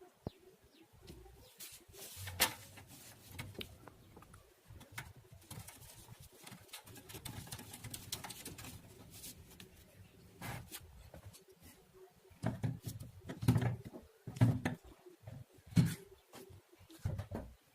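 Scattered clicks and knocks of small parts being handled and a rotary-encoder volume control being fitted to an amplifier's front panel, with a sharp click about two seconds in and a cluster of louder knocks and thuds near the end.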